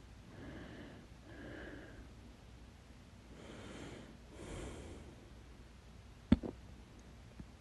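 A person breathing audibly, with several soft breaths in and out, then one sudden, sharp, loud hiccup about six seconds in.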